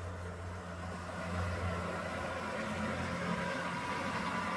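HO-scale model freight train running along the layout track, a steady low hum that grows louder as it approaches.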